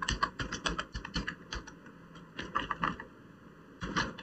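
Computer keyboard typing: short key clicks in quick irregular runs, with a brief pause about two seconds in.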